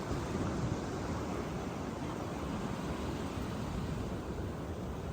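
Sea waves washing onto a beach, a steady rushing noise, with wind on the microphone.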